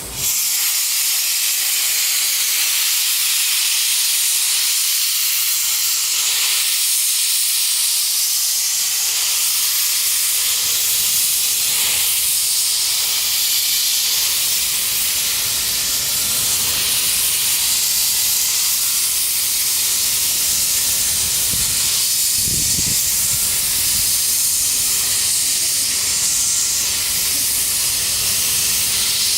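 Steam locomotive venting steam: a loud, steady hiss that starts suddenly and holds without a break.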